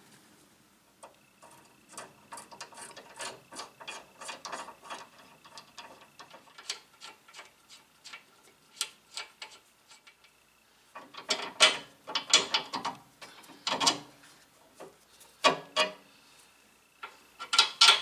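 Ratchet wrench clicking in quick runs as the loosened fasteners of a front stabilizer (sway bar) link are backed off, then several louder metallic clanks and clicks in the second half.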